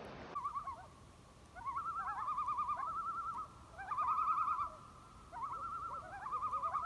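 A bird calling in repeated wavering, trilling phrases about a second long, with short rising notes between them.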